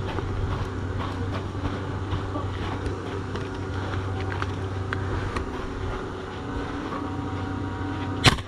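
A steady low hum with faint scattered ticks. Near the end comes one sharp, loud snap, a single airsoft gun shot.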